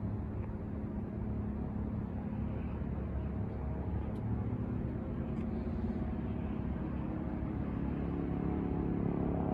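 Bell 407 helicopter, a single-turbine machine with a four-blade main rotor, passing overhead: a steady rumble with a constant hum in it, growing slightly louder near the end.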